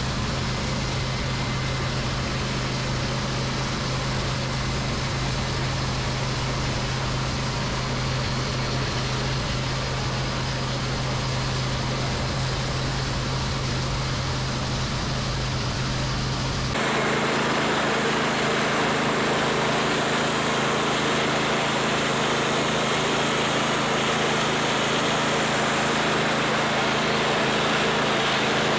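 Homemade band sawmill running steadily on its small engine while making a cut through a log. About seventeen seconds in, the sound changes abruptly and becomes a little louder and brighter.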